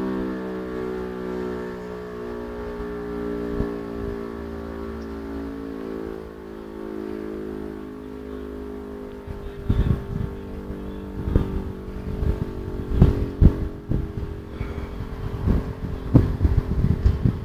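Civil defence siren sounding a tone with several overtones, slowly falling in pitch and fading as it winds down. From about ten seconds in, wind gusts buffet the microphone with repeated loud low thumps.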